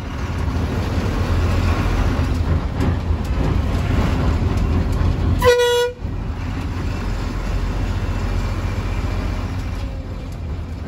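APSRTC bus running uphill on a forest road, heard from inside: a steady low engine and road rumble. About halfway through, one short vehicle-horn toot.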